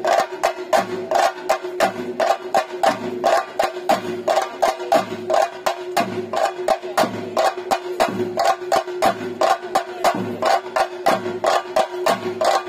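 Theyyam ritual drumming: chenda drums struck with sticks in fast, continuous strokes, with a deeper accented beat about once a second, over a steady held tone.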